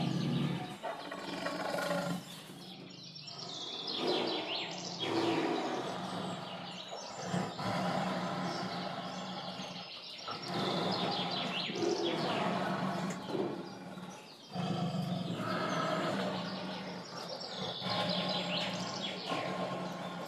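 Birds chirping and calling over a steady outdoor ambience, many short falling chirps repeating through it.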